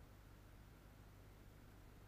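Near silence: a faint steady low hum with an even hiss.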